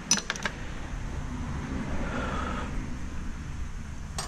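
A quick cluster of sharp metal clinks at the start and a couple more near the end, as small parts are handled during the teardown of a stainless steel steamer, over a low steady rumble.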